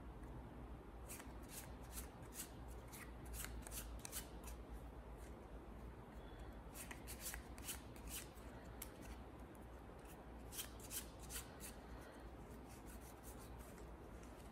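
Faint handling of a deck of playing cards: clusters of quick, sharp flicks and snaps as the cards are spread and riffled between the hands, over a low steady hum.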